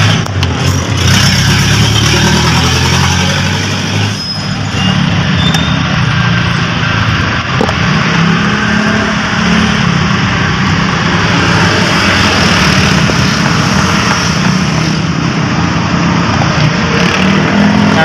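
Steady, loud running of motor vehicle engines and traffic, with a low hum that drifts slightly in pitch, and a few light clicks.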